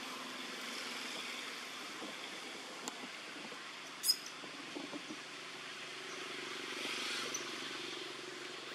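Steady outdoor background hiss with a few faint clicks and one brief high chirp a little after four seconds in.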